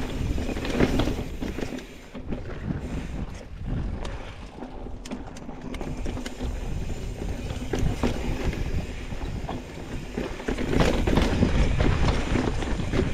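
Mountain bike riding a dirt and rock trail: tyres rolling and rattling over the ground, with wind rumbling on the microphone. It gets quieter for a stretch after the first couple of seconds and louder again near the end.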